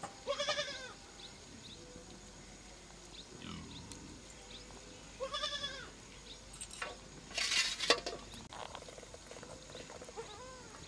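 Goat bleating: two wavering bleats of about half a second each, one near the start and one about five seconds in, and a fainter one near the end. About seven seconds in comes a short harsh rasp ending in a sharp click.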